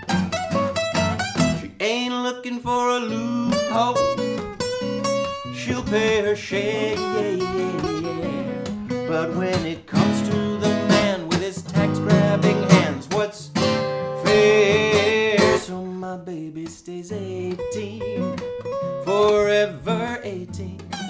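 Two acoustic guitars playing an instrumental break in a bluesy folk song: one strums chords while the other picks a single-note lead with bent notes.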